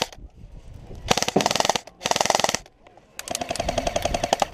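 Airsoft gun firing three bursts of full-auto fire, a rapid stream of shots each time. The last burst is the longest.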